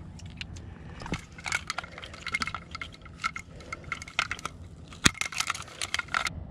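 Hands handling a plastic fish lip-grip and a Berkley dial fish scale with its metal hook: a run of small clicks and clinks, with one sharper click about five seconds in.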